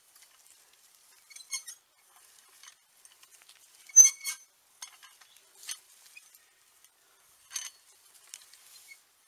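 Metal tines of a WOLF-Garten hand star cultivator being worked back and forth through soil, scraping and clinking against grit and stones in scattered rattles. The loudest rattle comes about four seconds in.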